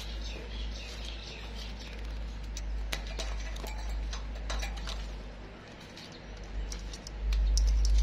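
Low rumble on the microphone that grows much louder near the end, with scattered sharp clicks and brief high chirps from a plum-headed parakeet.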